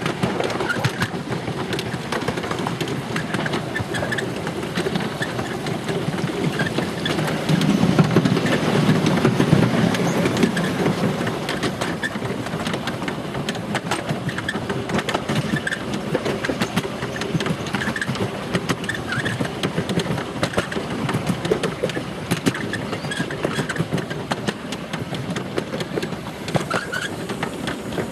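Miniature steam railway train running, heard from an open passenger coach: steady rolling noise of small wheels on the track with many short clicks, louder for a few seconds about eight seconds in.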